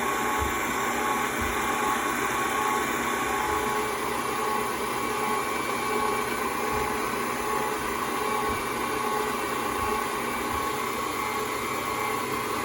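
Electric stand mixer running steadily with a motor whine, beating butter and sugar together.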